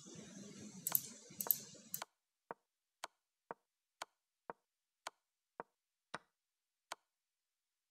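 Move sound of an online chess board: a short, sharp click for each move as the game is stepped through, about two a second. It starts after a few scattered, fainter clicks over low hiss.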